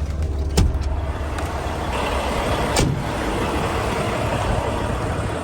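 Steady low hum of an idling truck engine with a broad rush of noise, which grows fuller about two seconds in, and two sharp knocks, one about half a second in and one near the three-second mark.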